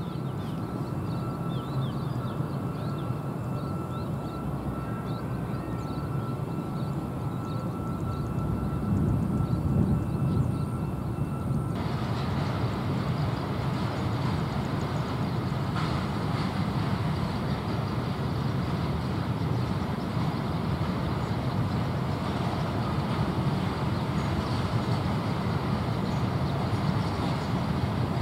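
Small diesel locomotive of a sugar-cane field railway running with its train of empty cane wagons, a steady low engine rumble. The background changes abruptly about twelve seconds in.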